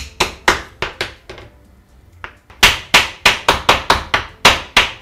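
Kitchen knife chopping through peeled raw cassava onto a wooden cutting board. A few cuts, a pause of about a second, then a quick run of about four chops a second.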